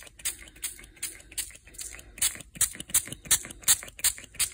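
Hand-pump spray bottle of Distress Stain ink misting over a stencil on cardstock, pumped in quick repeated hissing squirts, about four a second, with a short pause between runs.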